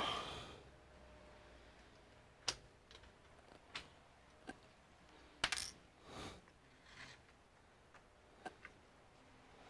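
Small screws and parts clicking and tapping as they are handled during reassembly: a scattering of short, sharp taps about a second apart, the loudest about five and a half seconds in.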